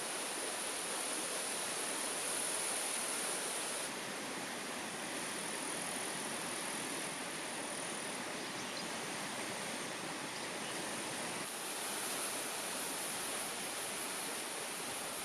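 Mountain stream rushing steadily, with a thin, steady high-pitched hiss on top.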